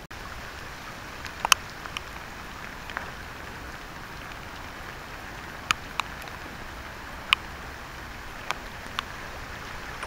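Steady rain falling in woodland, with about eight sharp taps of heavier drops scattered through it.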